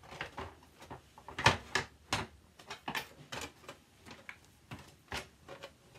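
Plastic parts of a Frozen 2 Arendelle Castle toy dollhouse clicking and knocking as the floor panels are pressed and snapped together: a string of sharp, irregular clicks, the loudest about a second and a half in.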